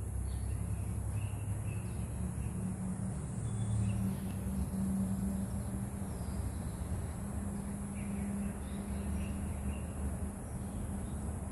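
Outdoor ambience: a steady low rumble with a hum, a continuous high-pitched drone, and a few faint short bird chirps scattered through.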